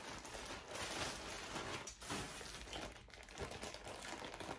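Plastic seafood-boil bag crinkling and rustling in an irregular run of crackles as it is handled and opened.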